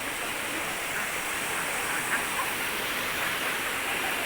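Steady rushing of a waterfall, water pouring onto rocks.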